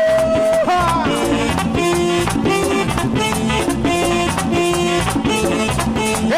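Live merengue típico: a button accordion plays held notes and melody over a tambora drum and fast, steady percussion.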